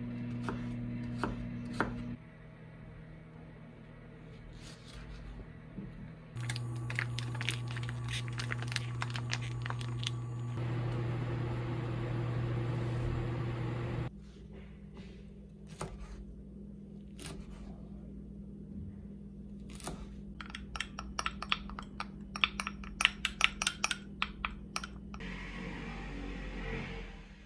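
Chef's knife chopping onion on a wooden cutting board, in runs of quick sharp cuts with pauses between, over a steady low hum. Near the end, the knife scrapes the chopped onion off the board into a dish.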